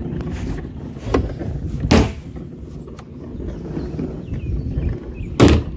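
Wheeled trash can being pulled along pavement, its wheels rumbling steadily, with sharp knocks about a second in, two seconds in and a louder one near the end as the bin bumps and its lid knocks.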